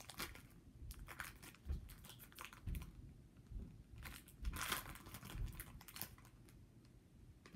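Foil wrapper of a Pokémon card booster pack crinkling in irregular rustles as it is handled and opened, with a louder burst about four and a half seconds in.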